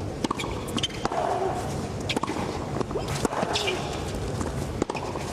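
Tennis rally on a hard court: a serve, then the ball struck back and forth, with sharp racket-on-ball hits and ball bounces spaced irregularly through the rally, over steady stadium background noise.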